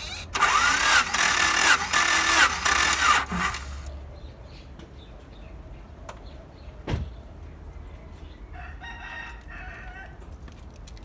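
Car engine cranked on its starter for about three seconds with a compression gauge on cylinder 4 for a dry compression test, the starter's pitch rising and falling in humps as it turns the engine over. A single sharp knock follows a few seconds later.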